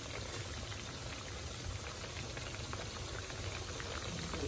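Fish steaks cooking in a wide aluminium pan of oily sauce, the sauce bubbling steadily with a fine, even crackle of small bubbles.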